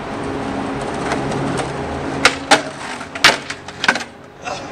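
Skateboard wheels rolling over asphalt with a steady rumble, then several sharp clacks of the board hitting the ground in the second half.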